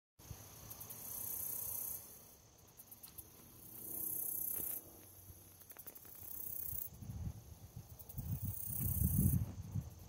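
Insects singing in repeated high-pitched pulsing bouts, each lasting a second or two. Low thumps and rumble take over in the last few seconds and are the loudest sounds.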